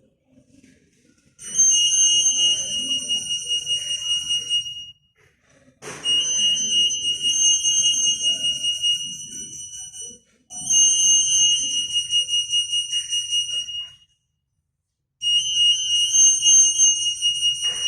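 Acousto-magnetic EAS security antenna alarm beeping: a high, rapidly pulsing electronic tone in four runs of about four seconds each, with short gaps between. Each run is triggered when an AM soft label is detected passing through the antennas.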